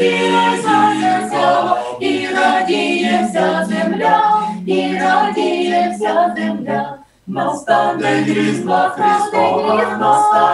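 Small mixed choir of men's and women's voices singing a Ukrainian Christmas carol a cappella in several parts. There is a brief break for breath between phrases about seven seconds in.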